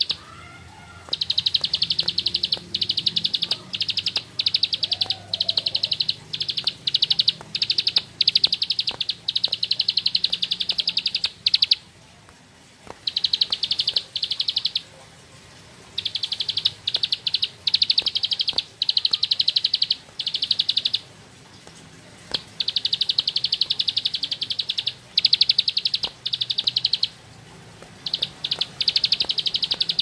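A caged ciblek sawah (a small prinia) singing its fast, buzzy, drill-like trilling song. The song comes in rapid bursts, one after another, broken by a few short pauses.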